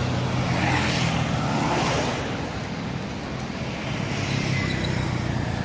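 Road traffic: a steady low engine drone, with the rush of a vehicle passing about one to two seconds in.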